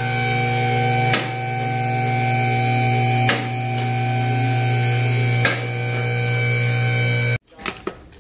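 Electric hydraulic pump motor of a two-post auto lift running with a steady hum as it raises a truck, cutting off shortly before the end.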